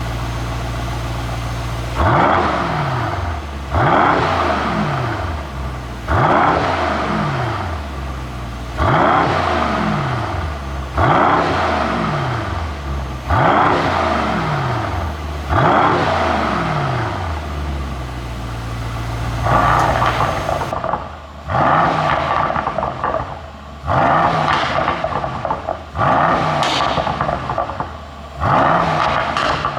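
Mercedes-AMG E63 4Matic+ twin-turbo V8 idling, then blipped about a dozen times, roughly every two seconds: each rev rises sharply and falls back to idle. The falls are broken up by exhaust pops and crackles from an overrun 'pop' tune, thickest in the later blips.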